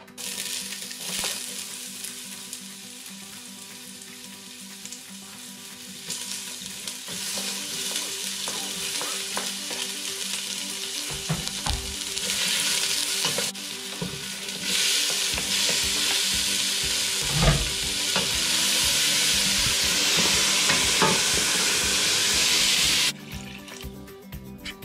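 Sliced onions and ginger sizzling in a hot stainless steel stockpot. The sizzle grows louder in steps while a metal ladle stirs, scrapes and knocks against the pot. The sizzle stops abruptly near the end.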